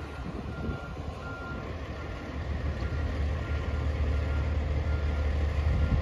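Fire engine's reverse alarm beeping at an even pace, about three beeps every two seconds, over the truck's engine running, which grows louder from about two seconds in as it manoeuvres.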